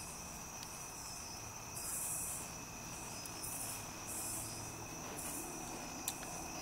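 Quiet, steady high-pitched background drone with a few soft swells of hiss, and a couple of faint light clicks from hands working the Tektro Gemini brake caliper as the old pads are pushed out.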